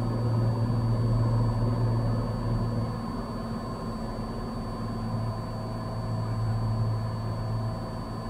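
Cessna 182's six-cylinder piston engine and propeller droning steadily as heard in the cabin, with a thin, steady high whine over it. The drone drops a little about three seconds in, swells again a few seconds later, then eases off near the end.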